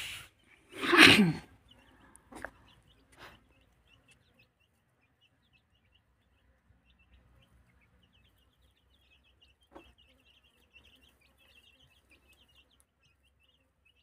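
Desi chicks peeping in short, high chirps, thickest in the second half. About a second in comes one loud, brief cry that falls in pitch, and a few faint knocks follow.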